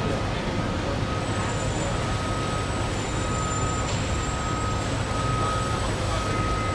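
Steady road traffic rumble, with a mid-high electronic beep repeating on and off over it.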